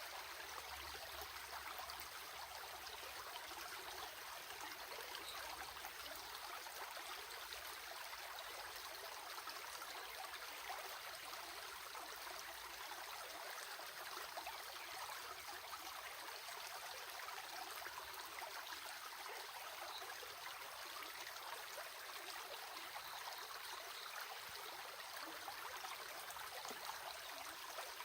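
A stream's water running steadily, an even rushing with no change.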